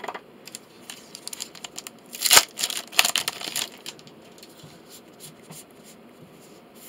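Foil wrapper of a Magic: The Gathering Core Set 2020 booster pack being torn open: two loud rips, about two and three seconds in, with softer crinkling and small clicks of cards being handled around them.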